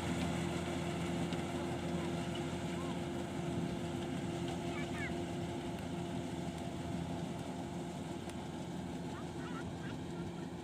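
Kubota rice combine harvester running steadily at a constant engine speed.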